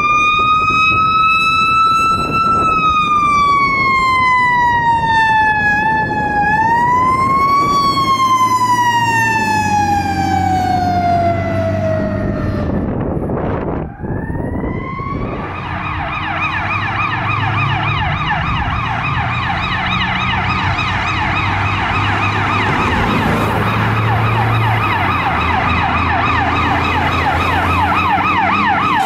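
Emergency vehicle sirens. A siren wails in slow, uneven rises and falls, sliding low about twelve seconds in. After a short break, a siren yelps rapidly over a low steady engine drone.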